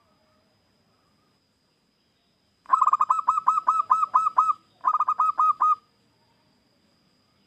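Zebra dove (perkutut) singing: a fast run of about a dozen short ringing coos, then after a brief pause a shorter run of about six.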